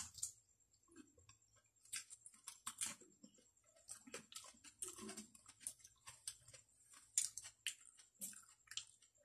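Close-miked chewing of boiled saluyot (jute mallow) leaves: soft, wet, irregular mouth clicks and smacks.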